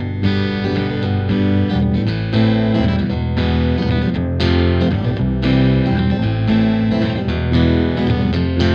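Background music: distorted electric guitar over a steady beat.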